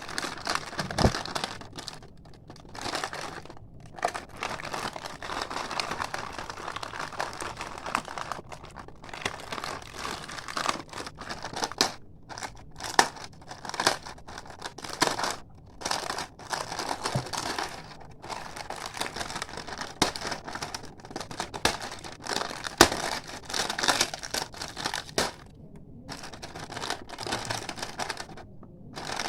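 Plastic packaging of a slime pack crinkling and crackling as it is handled and opened, in irregular bursts with a few brief pauses.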